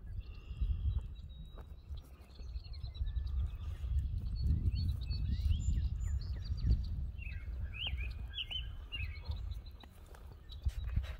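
Small birds chirping and calling around a pond, with a quick cluster of rising calls about eight seconds in, over a steady low rumble and footsteps on grass.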